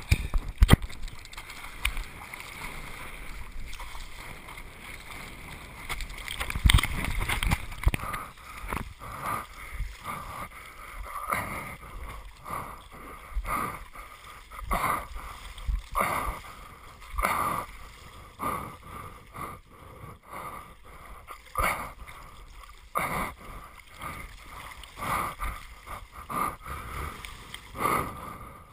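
Water splashing and sloshing around a surfboard as the rider paddles. From about eight seconds in, the splashes come as regular surges, one every one to two seconds.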